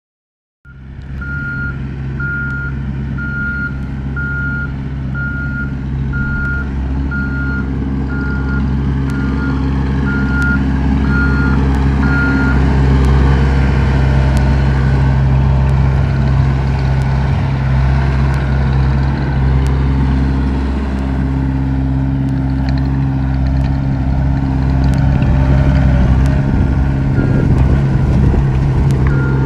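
Skid steer loader's diesel engine running steadily under work, its backup alarm beeping about once a second while it reverses. The beeping stops about halfway through and starts again near the end.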